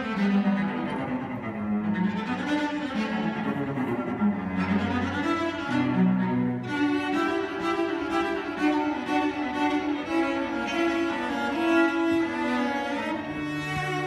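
Two cellos playing a duet, bowing held notes, with a lower part moving beneath a higher line.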